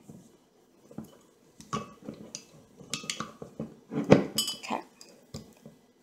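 Metal parts of a small lever corkscrew clicking and knocking against the glass neck of a wine bottle as its lever is set on the lip and worked, with a sharper knock about four seconds in.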